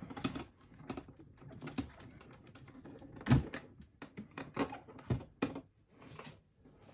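Spade connectors and wires being pulled off the terminals of 12 V lead-acid UPS battery cells by gloved hands: scattered clicks, knocks and plastic rustling, with one louder knock about three seconds in.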